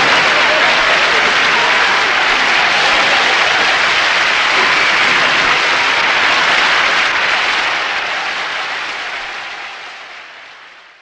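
Studio audience applauding after a roast punchline, a steady wash of clapping that fades out from about seven seconds in.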